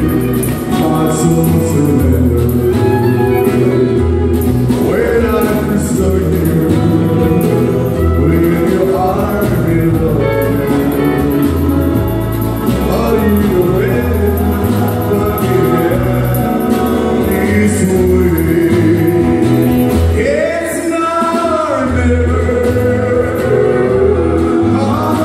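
Live band playing a song: fiddle, acoustic guitars and drums with a moving bass line under a lead vocalist singing through the PA.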